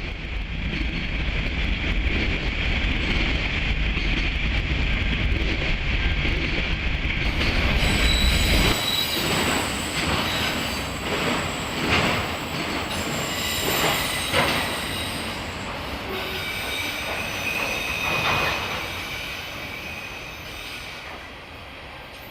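A loaded auto rack freight train rolling past. A heavy low rumble gives way about nine seconds in to steel wheels squealing and clicking over the rails, and the sound fades slowly near the end.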